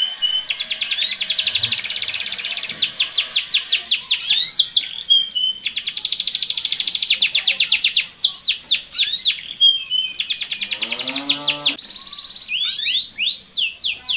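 Domestic canary song: long rolls of very fast repeated notes, each lasting a couple of seconds, alternating with slower sweeping notes, three rolls in all. This is the male's rolling breeding song (ngerek) played to bring canaries into mating condition. A lower call sounds briefly about ten seconds in.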